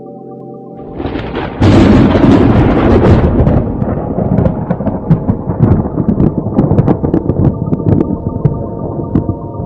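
A thunderclap: a crack about a second in, then a loud rolling rumble with scattered crackles that slowly dies away, over steady synth music tones.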